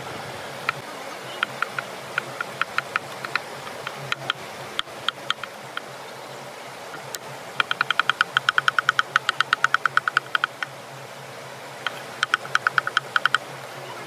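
Steel cleaver chopping on a wooden cutting board, mincing: scattered knocks at first, then a fast run of rapid chops about halfway through and another shorter run near the end. A stream rushes steadily underneath.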